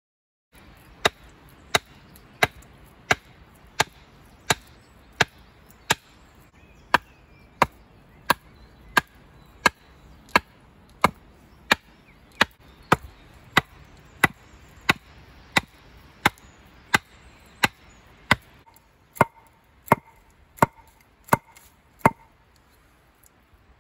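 Wood being chopped with a hand tool in a steady rhythm, one sharp stroke about every two-thirds of a second, some thirty strokes in all.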